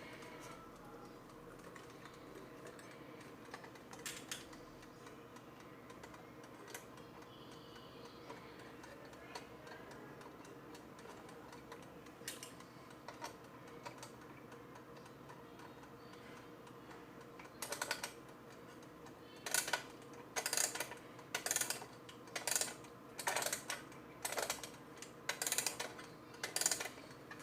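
Serviced 1977 Westclox mechanical alarm clock ticking faintly, with a few isolated clicks. About two-thirds of the way in comes a run of short, louder clicking bursts, about one a second.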